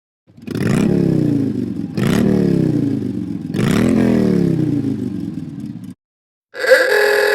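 iPhone's classic 'Motorcycle' ringtone: a recorded motorcycle engine revved three times, each rev a quick rise and a long fall in pitch. The next ringtone, a short steady tone, starts near the end.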